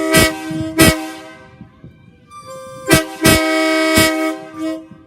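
Multi-chime locomotive air horn blown on compressed air: a held chord that trails off about a second and a half in, then a second blast of about two seconds. Several sharp knocks sound over the horn.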